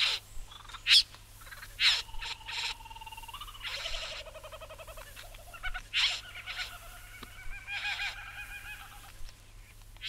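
Satin bowerbird calling: short sharp notes, with two long buzzing, rapidly pulsing calls, one about three seconds in and one about seven seconds in.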